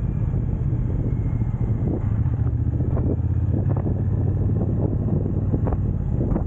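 Motorcycle engine running at a steady speed on the road, with wind buffeting the microphone.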